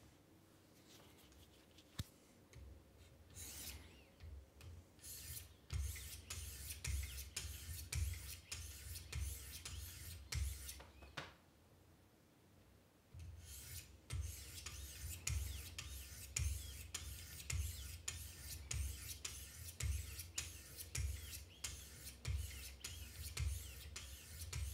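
Wicked Edge guided sharpener's 800-grit stones rasping along the edge of a Benchmade Mini Reflex II knife in quick, even strokes, about two a second. There is a single click about two seconds in, and a pause of a couple of seconds partway through before the strokes resume.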